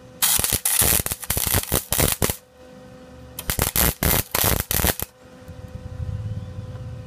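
Electric arc welding crackling in two bursts of about two seconds each, with a pause between them, as weld beads are laid.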